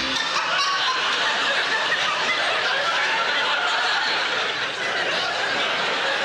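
Live theatre audience laughing, one long, steady laugh.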